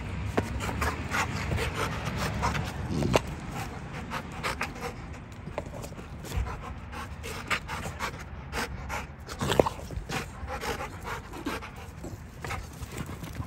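Rottweiler panting close up, with short irregular clicks and scuffs.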